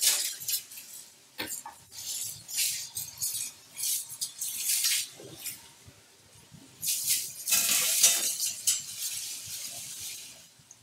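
A chef's knife slicing a kielbasa on a plastic cutting board: a run of short, sharp knife strokes hitting the board. About seven seconds in comes a longer stretch of scraping across the board.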